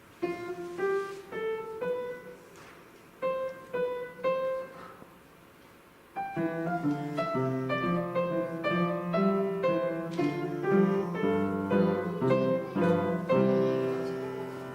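Piano duet: a simple melody of single notes with short pauses, then about six seconds in a second, fuller part with low bass notes joins and the playing runs on, fading near the end.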